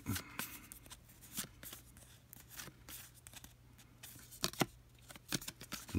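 Trading cards handled and slid across one another: faint scrapes and flicks as each card is pushed off the stack, with a few sharper flicks near the end.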